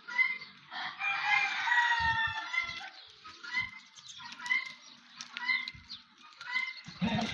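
Chickens calling: a long, drawn-out crow about a second in, followed by short calls repeating roughly once a second.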